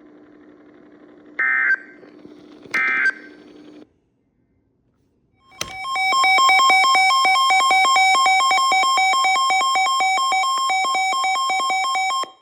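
Two short bursts of weather-radio data tones, then after a pause a loud electronic alert tone that warbles rapidly between several pitches for about seven seconds before cutting off sharply.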